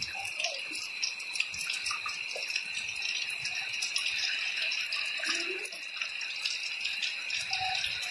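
Hands tearing coconut husk fibre and kneading it into wet mud in a plastic basin: soft rustling, squelching and small ticks. Under it runs a steady high-pitched buzz.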